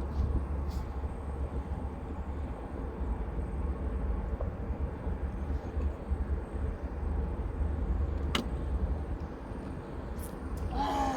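Steady rumble of road traffic from a toll road, with one sharp click about eight seconds in and a brief wavering higher sound near the end.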